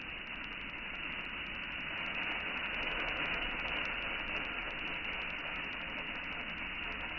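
Uncooked rice grains pouring in a steady stream from a metal bowl onto rice in a pot: a continuous hissing patter, a little louder about two to four seconds in.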